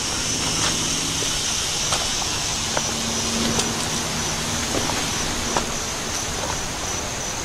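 Steady outdoor background of distant road traffic, with insects droning at one steady high pitch and a few faint clicks.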